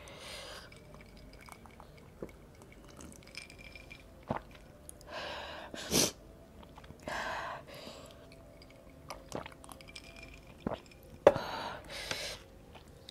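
Sips of iced cola from a glass and swallowing, broken by several sharp breaths out through the mouth from the burn of ghost pepper chilli. A few small clicks of mouth and glass, and a sharp knock near the end as the glass is set down.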